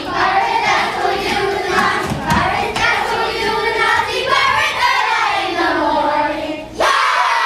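A group of children singing together, their voices overlapping. Near the end a sudden loud burst of shouting and cheering breaks in.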